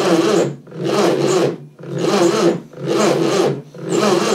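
Starter motor on a bench-mounted Reliant Regal 600cc engine spinning the engine over in a run of short bursts, about one a second, each a rasping whir.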